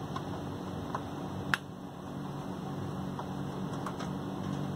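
Steady fan hum in a small workshop, with a few light clicks and one sharp metallic click about a second and a half in as the receiver's perforated steel bottom cover is handled and lifted off.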